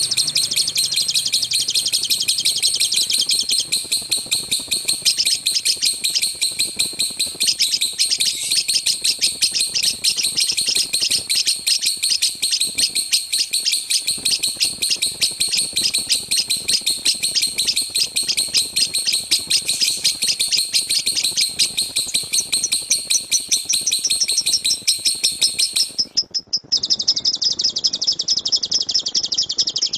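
Lovebird giving its loud rapid-fire 'tembakan' song: a fast, unbroken run of high chirps. About 26 seconds in it stops for a moment, then resumes thinner and a little lower.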